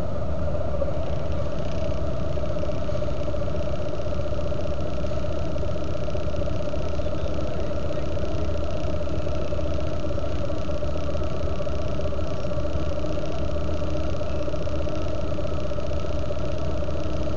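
Motorcycle engine idling steadily at a standstill, with an even pitch that does not rise or fall.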